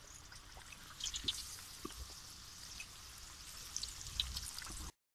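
Dal kachoris deep-frying in plenty of hot oil in a karahi: a steady sizzle with scattered crackles and pops. The sound cuts off suddenly just before the end.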